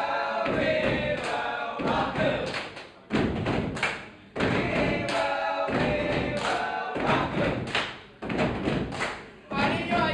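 A group of young male voices singing together, mixed with thuds of feet stepping and stamping on a wooden stage.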